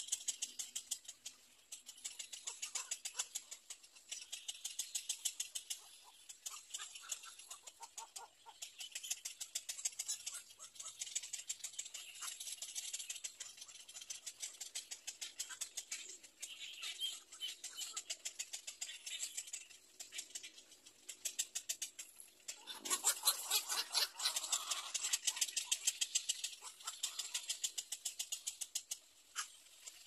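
Little egret chicks giving rapid, high-pitched clicking chatter in uneven runs, with a louder, lower call stretch about three-quarters of the way through.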